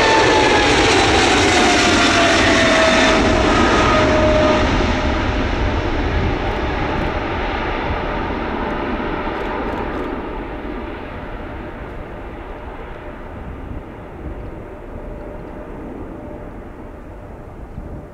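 Boeing 777F freighter's twin GE90 turbofans at takeoff power as it passes and moves away: a loud jet rumble with a whining fan tone that falls in pitch over the first few seconds, then the noise fades steadily.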